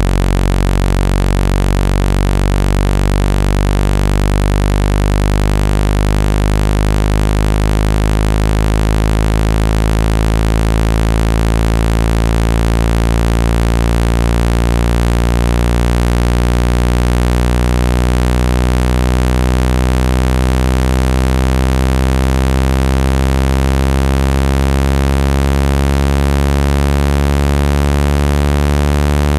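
Synthesized low-frequency water-eject tone, meant to be played through an iPhone speaker so its vibration pushes out trapped water: a loud, steady, low buzz with many overtones.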